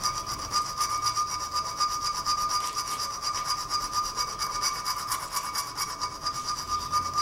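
Rapid back-and-forth rasping of a metal-cutting hand tool on a steel cheese-knife blade clamped in a vise, with a steady high tone under the strokes.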